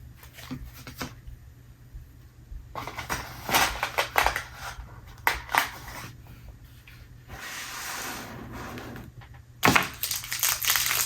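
Handling noises from the kit: scattered small clicks and rustles, a short stretch of scratchy hiss, then loud crinkling of plastic packaging starting shortly before the end.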